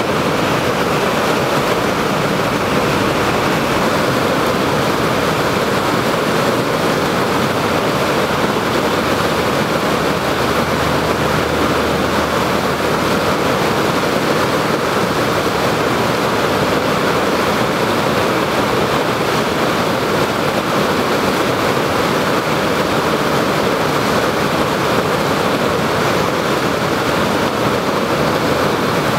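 Steady roar of whitewater from a standing river wave, the river pouring over a whitewater-park feature at about 2100 cfs.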